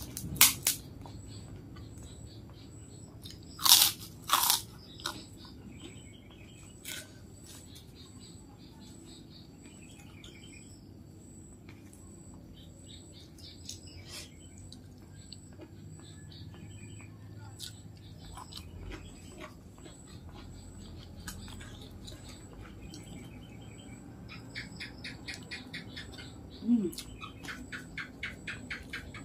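Crisp kerupuk crackers being snapped and bitten with loud sharp crunches, a couple of them a few seconds in, then a quick run of crackly crunching chews near the end.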